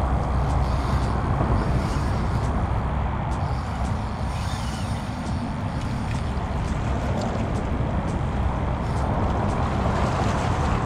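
Steady wind noise on the microphone: a low rumble under an even hiss.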